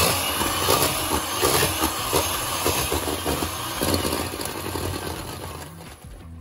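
Electric hand mixer running, its beaters creaming butter and sugar in a plastic bowl, with an irregular clatter of the beaters against the bowl. The motor cuts off near the end.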